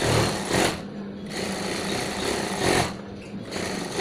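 Industrial lockstitch sewing machine stitching gathers into chiffon with a gathering foot. It runs in three short spurts with brief stops between them. The motor hums steadily through the pauses.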